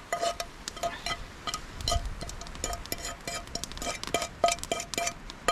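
A metal utensil tapping and scraping in a frying pan: a quick, irregular run of clinks, each with a short ringing tone.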